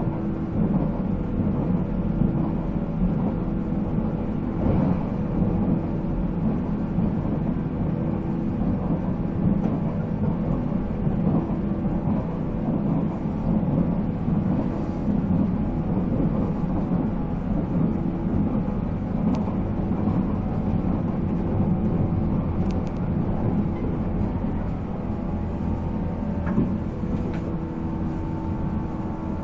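485-series electric train running, heard from inside the car: the MT54 traction motors hum with steady tones over continuous wheel-and-rail noise.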